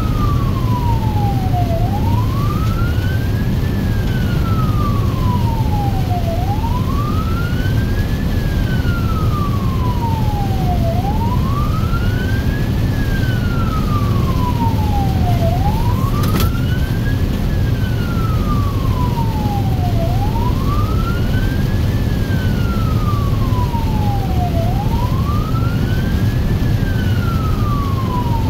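Emergency vehicle siren on the wail setting, heard from inside the cab, sweeping up and down in pitch about every four and a half seconds, a slightly quicker rise and a slower fall. A steady low rumble from the moving vehicle runs beneath it.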